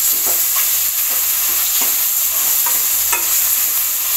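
Chopped ridge gourd, onion and tomato sizzling in hot oil in a steel pan, stirred with a metal spoon that gives a few light scrapes against the pan.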